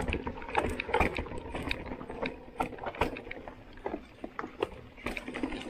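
Mountain bike rolling down a rocky dirt singletrack: tyres crunching over soil and stones, with frequent irregular clatters and knocks from the chain and frame.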